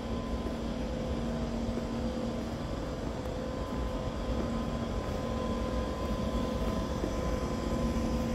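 Steady mechanical drone of a subway station, an even low rumble with a faint steady hum and whine above it, while a train stands at the platform with its doors open.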